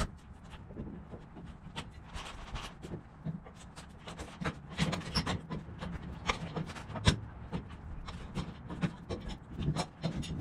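Irregular knocks, taps and scraping of wood and hand tools as wooden fire blocks are worked loose from the framing, with one sharper knock about seven seconds in.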